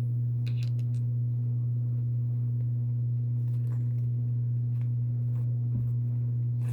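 A steady low electrical-sounding hum, with a few faint soft clicks and rustles of handling over it.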